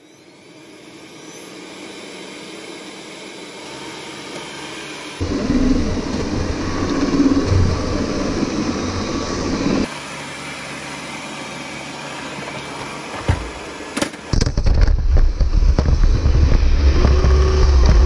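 Xiaomi Mi Robot Vacuum's suction fan whirring up gradually as it leaves its dock to start cleaning, then running steadily as it drives over the floor. In two stretches the sound turns into a heavy low rumble, picked up close by the action camera riding on top of the robot.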